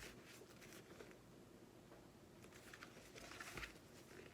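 Near silence: room tone with a few faint soft ticks and rustles, slightly more of them in the second half.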